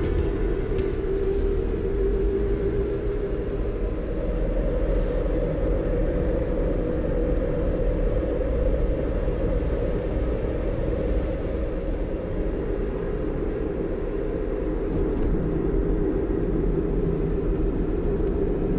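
Car driving at a steady cruising speed, heard from inside the cabin: an even, unbroken road noise of tyres on asphalt with the engine underneath.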